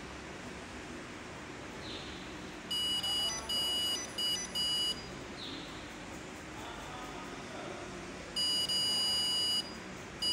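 A-scan ultrasound eye biometer beeping as it takes axial-length readings of the eye: four beeps about three seconds in, then one long beep about eight seconds in.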